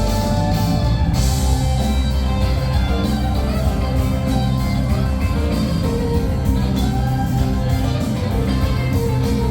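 Music with guitar over a strong, steady bass line, continuous and fairly loud.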